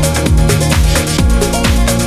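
Background electronic dance music with a steady, driving beat and deep bass.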